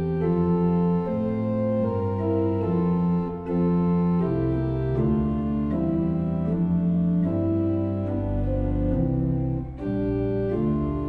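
Organ playing slow, sustained chords that change every second or so, with a deep bass note coming in near the end.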